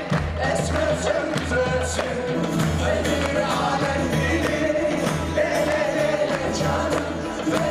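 Live Turkish folk music: voices singing together over a band, with a large davul drum beating a steady rhythm.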